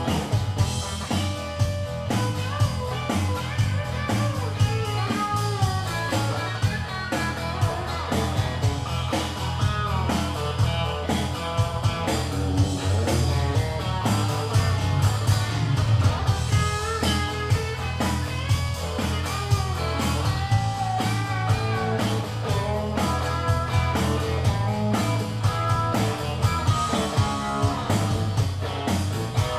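Live rock band playing an instrumental break: a guitar lead with bending, sliding notes over a steady bass line and drums.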